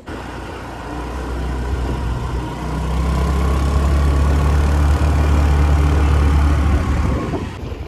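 Motor scooter riding along a road: its small engine running steadily under a rush of wind noise on the microphone. The sound gets louder about three seconds in and eases off near the end.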